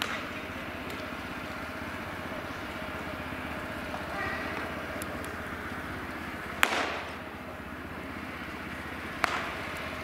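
A baseball smacking into a leather glove with a sharp pop, loudest about two-thirds of the way in, with a lighter snap near the end, over a steady background murmur.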